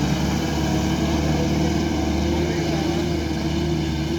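Heavy diesel engine running steadily, its pitch lifting slightly partway through and then holding.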